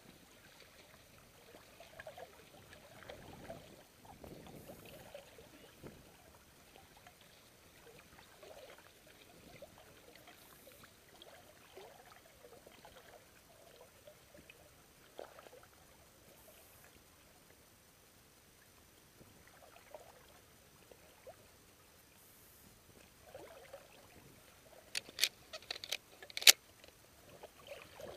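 Soft lapping and trickling of water against the side of a small boat, quiet throughout. Near the end comes a quick run of four or five sharp clicks or knocks, louder than the water.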